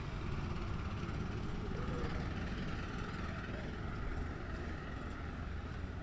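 Steady outdoor street ambience: an even, low rumble of road traffic, with no single sudden sound standing out.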